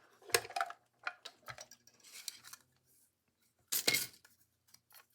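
Craft tools and supplies handled on a work table: scattered light clicks and clinks, with a louder clatter about four seconds in.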